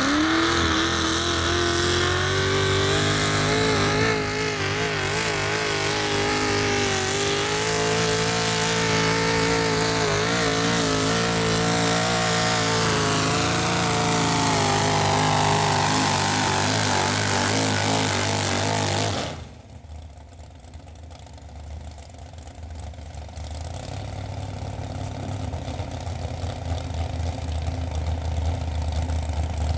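Supercharged engine of a mini-rod pulling tractor revving up and running at full throttle under load as it drags a weight-transfer sled, its pitch wavering; it cuts off abruptly about 19 seconds in, ending the pull. After that a low engine rumble builds steadily.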